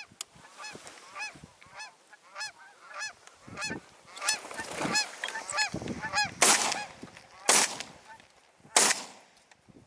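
Geese honking repeatedly in a steady run of short calls, with three brief loud rushes of noise in the second half.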